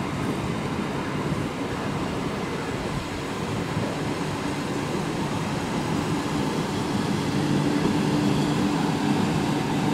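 Conventional EMU local train running past: a steady rumble of coaches and wheels on the rails, with a low steady hum coming in about seven seconds in and the sound growing slightly louder near the end.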